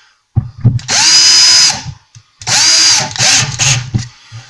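Cordless drill-driver run in two bursts of about a second each, each spinning up, holding and winding down, with clicks and knocks around them, as it drills and drives a screw through the side of one kitchen cabinet into the next to join them.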